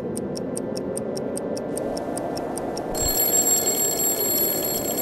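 Clock-and-alarm sound effect: a clock ticking about five times a second over a rising rush of noise. About three seconds in there is a thud, and an alarm clock starts ringing while the ticking goes on.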